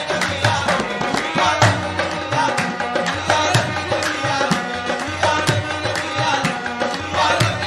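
Qawwali accompaniment without the lead voice: tabla playing a fast, driving rhythm over steady held harmonium notes.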